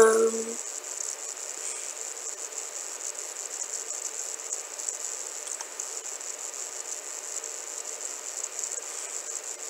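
A short hummed "mm" from a voice at the very start, then a steady background hiss with a high whine and a faint low hum from the home recording setup, broken only by a faint click or two.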